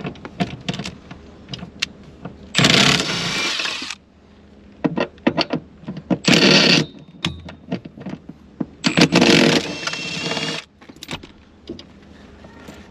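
Cordless power tool driving the bucket seat's rail bolts in bursts, with three runs of a second or two each and a shorter blip, and clicks and knocks of metal parts between them.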